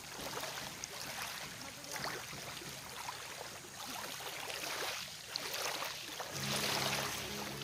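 Small waves washing onto a shallow sandy shore, the hiss swelling and fading about every second and a half. Low steady tones come in near the end.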